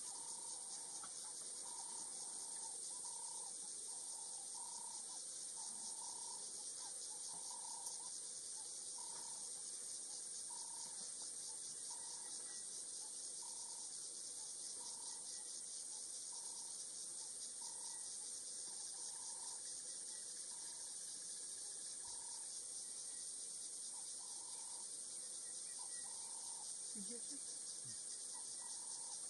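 Steady, high-pitched chirring of insects in dry bush. Over it a bird repeats a short call about once a second, and the calls stop a few seconds before the end.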